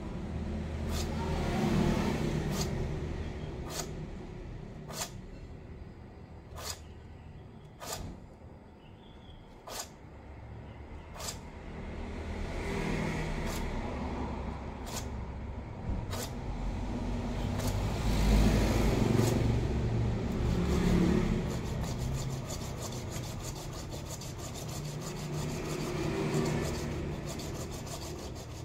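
A small hand blade sawing and scraping through the woody roots of a wisteria bonsai stock, in uneven scratchy strokes that swell and fade several times. Sharp ticks come about once a second through the first half, over a low rumble that is loudest about two-thirds of the way through.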